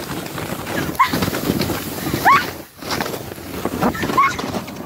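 Plastic sled sliding and scraping down a snowy slope, a steady rough hiss, with three short high squeals that rise in pitch.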